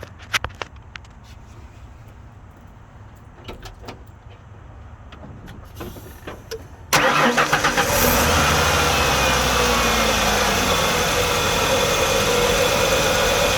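A few faint clicks, then about halfway in the Ford 300 cubic-inch (4.9 L) inline-six is cranked and starts, settling into a steady idle. It idles with no tick: the ticking came from loose spark plugs rattling, and they are now tightened.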